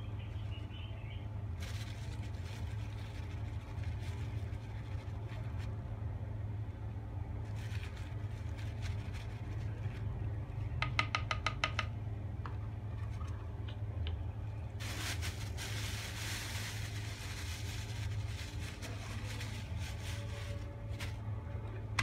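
A steady low hum throughout, with intermittent rustling and handling noises. A quick run of about eight sharp squeaky ticks comes about eleven seconds in.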